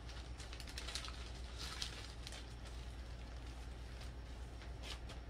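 Small plastic packaging being handled: light crinkling and rustling with a run of soft clicks and crackles, thickest in the first couple of seconds, over a low steady hum.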